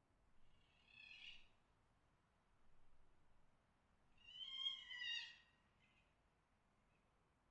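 Fox mating calls: a shrill, harsh call about a second in, a fainter one near three seconds, and a louder, longer call with a slight downward fall around five seconds in.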